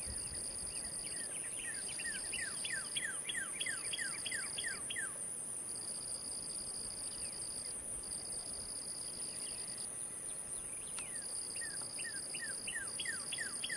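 Insects shrilling in a steady, very high buzz, with a second insect trilling in bouts of a second or two. Over it, twice, a run of quick falling notes repeated about five times a second, one run in the first few seconds and one near the end.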